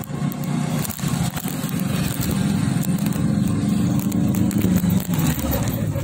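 Auto-rickshaw engine running as it drives, heard from inside the open passenger cabin, swelling in the middle and easing off near the end.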